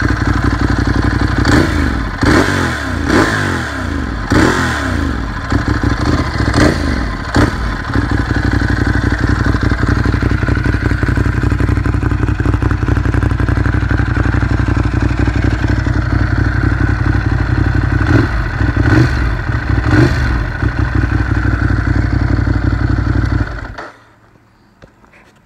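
A stock-exhaust 2015 Ducati Monster 821, its 821 cc Testastretta L-twin revved in a few blips over the first several seconds, then idling steadily. It is switched off a second or two before the end, and the sound stops suddenly.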